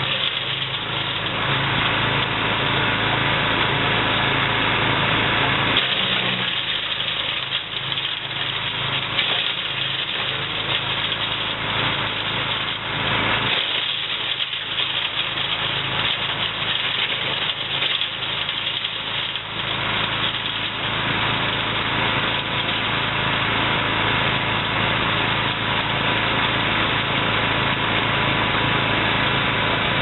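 Engine of a compact tow-behind wood chipper running steadily while branches are fed in and chipped, a dense crackling over the engine hum. The low engine note shifts twice as the load changes.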